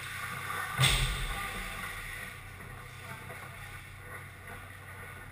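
Ice hockey game in play on an indoor rink: one sharp, loud knock about a second in, over a steady low hum and the scrape of skates on the ice.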